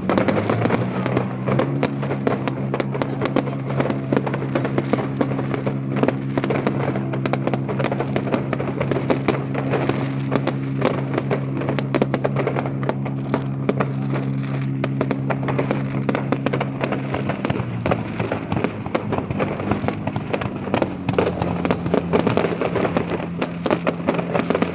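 Fireworks display: a dense, unbroken run of bangs and crackling, over music holding long sustained chords that shift a few times.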